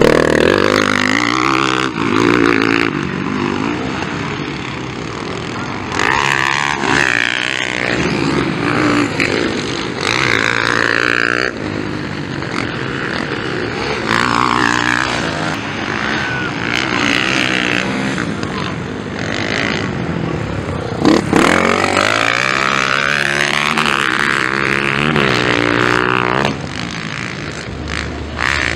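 Motocross bikes passing one after another, engines revving hard and dropping off in repeated surges of rising and falling pitch as the riders take the jumps and turns.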